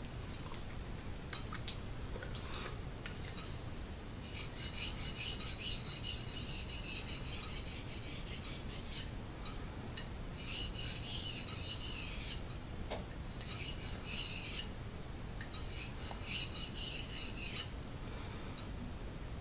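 Knife blade stroked back and forth on a small wet DC4 pocket whetstone, a high rasping scrape in four runs of strokes with short pauses between them. The changing pitch of the scrape is what the sharpener listens to as the edge comes up sharp.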